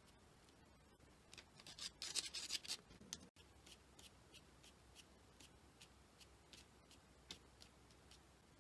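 Small sponge dabbed and rubbed over wet acrylic paint on a painting's surface. It starts with a short burst of scratchy rubbing, then goes on as faint, light dabs at about three a second.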